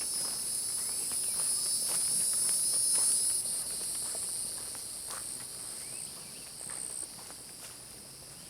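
Insects droning in a steady high-pitched chorus that fades after about three seconds, with the scattered crunch of footsteps on a woodland trail.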